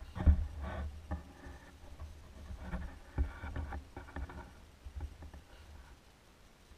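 Irregular muffled knocks and clatters over a low watery rumble, heard through an underwater camera housing. The sounds trail off near the end.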